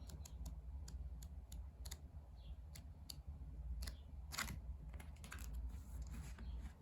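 Pages of an album photo book being flipped through quickly by hand: a string of light paper clicks and flicks, with a louder rustle about four and a half seconds in, over a low steady hum.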